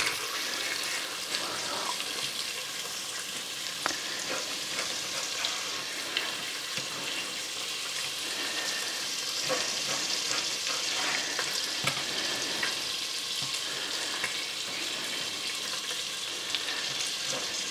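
Cubes of pork belly sizzling steadily in hot oil in a pot, with a light tap or click now and then.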